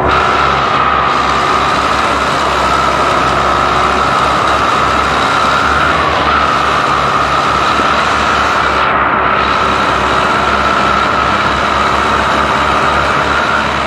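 Romanian tractor diesel engines running hard under full load in a tug-of-war pull, with a steady loud drone and an uneven low rumble as the rear wheels dig into the soil.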